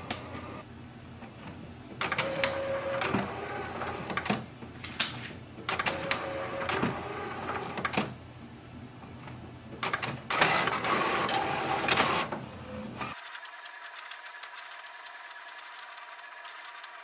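HP OfficeJet Pro 8135e inkjet printer working through printhead alignment. Three spells of mechanical running, each about two seconds, come while it prepares. Then, from about thirteen seconds in, a steady, fast ticking run as it prints the alignment page.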